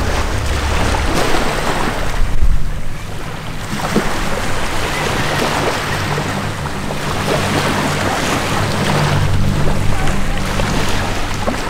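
Wind buffeting the microphone over surf, with a low engine drone that comes in about halfway through and holds steady.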